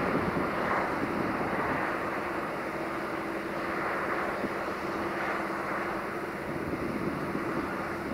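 Diesel-electric locomotive engine working under power as it approaches with a passenger train, a steady drone with a constant low hum.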